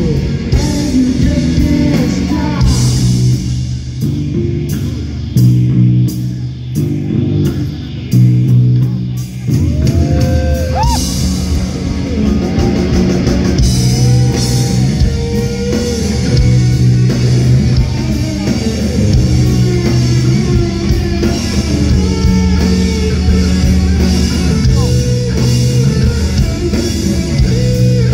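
Live rock band playing: electric guitar with bending notes over drums and bass. The low end gets much heavier about ten seconds in as the full band comes in.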